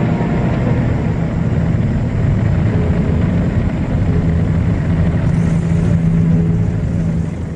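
Military truck engine running steadily as the truck drives along, a low drone.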